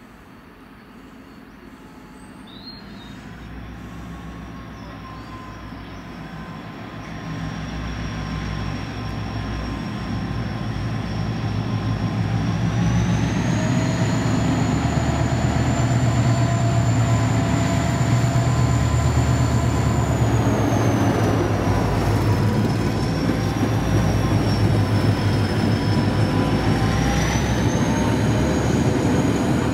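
Irish Rail 071 Class diesel-electric locomotive, an EMD 12-cylinder two-stroke, hauling a loaded-length ore train toward the listener and growing steadily louder for about fourteen seconds. Its deep engine drone and the heavy rumble of the wagons then hold loud as the train passes close by. A thin high whine sits above the drone, stepping up in pitch midway and dropping again as the locomotive goes past.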